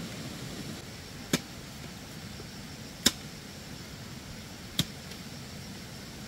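Three sharp knocks, evenly spaced about a second and three-quarters apart, the middle one loudest, over a steady low hiss.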